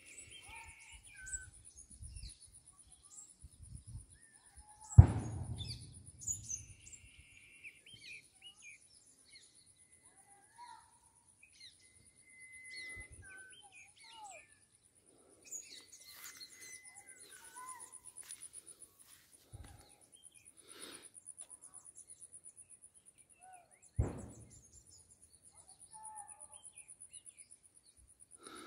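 Two loud bangs with a rumbling echo, the first about five seconds in and a softer one near the end: shots fired to frighten off wild elephants. Birds chirp between them over a steady high insect drone.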